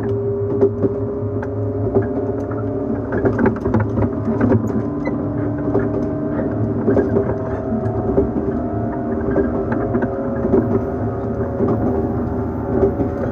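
JNR 115 series 1000-subseries electric train heard from inside a motor car at speed: the MT54 traction motors hum at a steady pitch over a low rumble of the running gear, with scattered clicks from the wheels on the rails.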